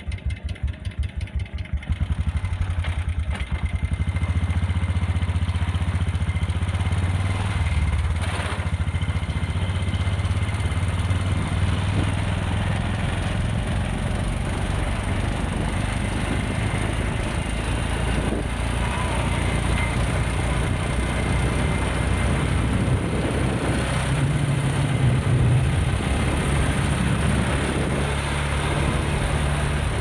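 Small motorcycle engine running steadily as the bike rides along a road. Its firing pulses quicken and grow louder over the first two seconds as it pulls away.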